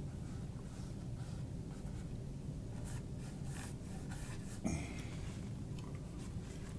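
Paintbrush stroking across a wet oil-painted canvas, a few faint scratchy strokes over a steady low hum, with one short sound a little past the middle.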